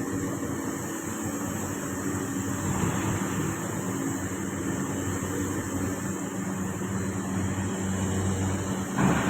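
TIG (argon) welding on a 3G vertical root pass: a steady arc hiss over a low, even hum, with a brief louder burst near the end.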